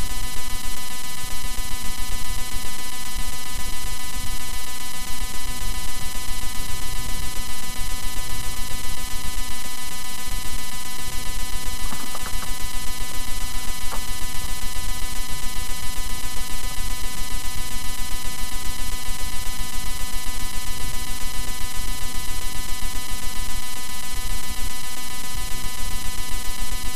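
Loud, steady electrical buzz with hiss that does not change throughout.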